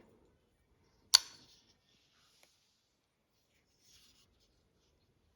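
One sharp click or snap about a second in, followed by faint rustling and a small tick as a new folding knife and its packaging are handled and opened.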